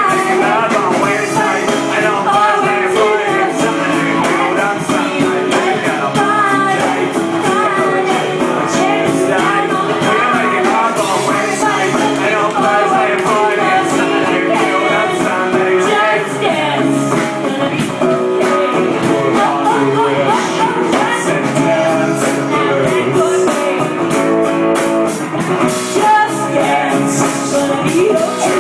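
Live rock music: a singer over guitar and drums, with a steady beat.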